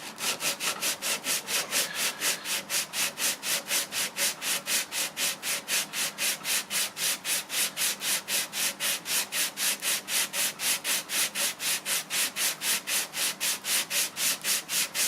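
Sandpaper, 120 grit, rubbed back and forth in quick even strokes, about four a second, over a wood-filler repair on an MDF door.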